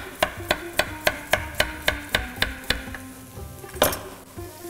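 Chef's knife slicing a carrot into rounds on a wooden cutting board: quick, even knocks of the blade on the board, about four a second. They stop a little under three seconds in, followed by one single louder knock near the end.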